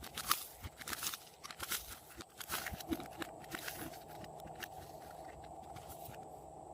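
Slime being squished and kneaded by hand, giving a run of sticky crackling clicks and pops that thins out after about four seconds.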